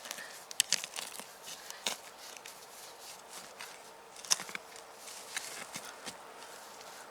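Irregular light snaps and crackles of dry twigs and forest litter being stepped on and handled, the loudest snap a little after the middle.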